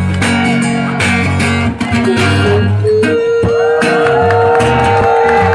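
Acoustic guitar, played through the PA, strumming chords. About three seconds in, a long held melody note comes in over it with a wavering line above.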